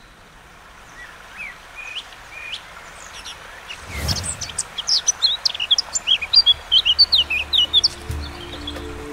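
Songbirds chirping: a few scattered calls at first, then a dense run of quick, darting chirps from about four seconds in, over a faint steady outdoor hiss. A dull thump sounds about four seconds in, and music comes in near the end.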